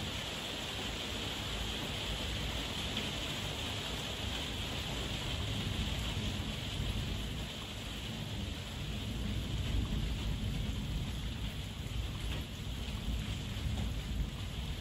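Heavy rain falling steadily, an even hiss with a deep low rumble underneath.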